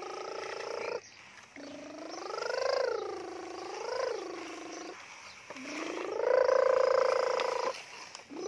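A person making truck-engine noises with their voice for a toy dump truck: long humming drones that rise and fall in pitch, in three stretches with short breaks. The last stretch is held steady and is the loudest.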